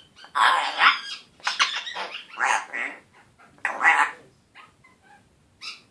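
One-year-old Congo African grey parrot vocalizing in a scratchy voice: about four short bursts over the first four seconds, then one brief one near the end.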